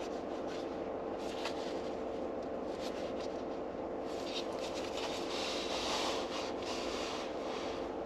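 Light rustling of a paper book's pages being handled, thickest about five to six and a half seconds in, over a steady mechanical hum in a car cabin.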